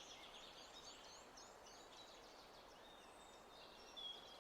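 Faint birdsong: a quick run of short repeated chirps, then a thin whistled note near the end, over a soft steady hiss of background ambience.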